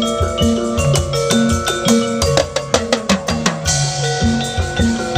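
Upbeat instrumental music with a drum kit, a repeating bass line and a marimba-like melody; about halfway through, a quick drum fill.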